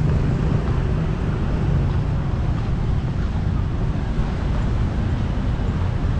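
Steady low rumble of engine traffic, with wind buffeting the microphone.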